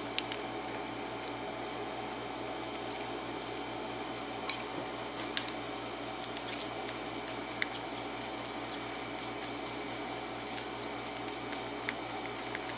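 Scattered light clicks and taps as a Schlage KIK lock cylinder is handled and fitted into a lock holder, over a steady background hum.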